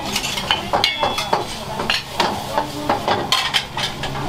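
Restaurant kitchen clatter: metal utensils clinking and knocking against pans and dishes, several sharp strikes a second, some ringing briefly, over a steady low hum.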